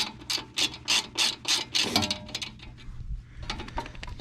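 Socket ratchet clicking in quick, even strokes, about three a second, then lighter scattered clicks in the second half, as small nuts are loosened.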